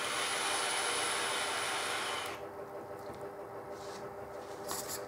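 Long draw on a box-mod e-cigarette: a steady hiss of air pulled through the atomizer for a little over two seconds, then stopping. A soft exhale follows, with a few faint clicks near the end.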